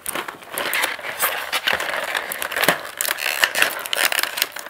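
Stiff plastic figurine tray being pried open by hand against its taped-on lid, giving an irregular run of sharp plastic clicks and crackles.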